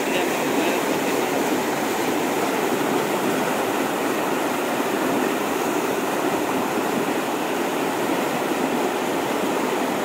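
Muddy river rushing through rapids: a steady, unbroken noise of turbulent white water.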